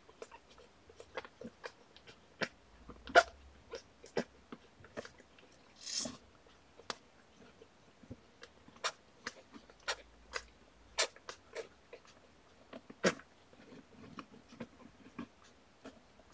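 Torbie mother cat licking and grooming her newborn kittens: irregular wet clicks and smacks of her tongue and mouth, with one short breathy burst about six seconds in.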